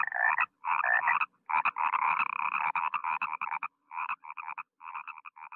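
Frog croaking in repeated bursts of rapid pulses, growing fainter over the last two seconds.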